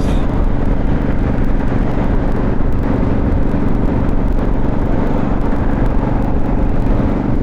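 Motorcycle engine running at a steady cruise, with heavy wind rush on the lavalier microphone; the engine note and the wind noise stay even throughout.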